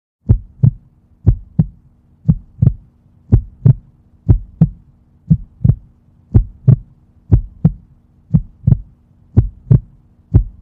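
Heartbeat sound effect: a double thump, lub-dub, repeating about once a second, eleven times, over a faint low hum.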